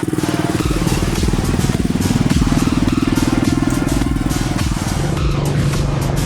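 Quad bike (ATV) engine running under way, a rapid pulsing note that shifts slightly in pitch, with a steady low tone coming in about five seconds in.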